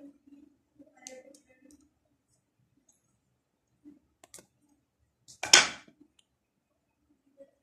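Two cats play-fighting on a laminate floor: faint scuffs and small clicks as they wrestle, with one loud, sudden burst of noise lasting about half a second, about five and a half seconds in.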